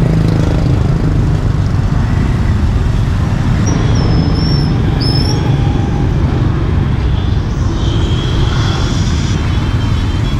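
Steady street traffic: motorbikes and cars running past with a constant low engine rumble. A couple of brief high squeaks sound about four to five seconds in.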